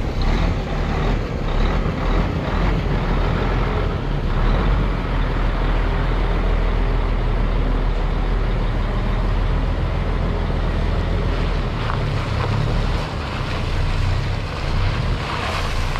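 Heavy truck engine running steadily, a low, even rumble with a wide noise over it.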